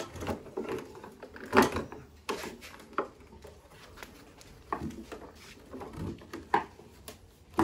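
Irregular wooden knocks and clicks from the twisting sticks and ropes of a taiko-stretching rig as the ropes are twisted tighter to tension the new drum head. The loudest knock comes about a second and a half in.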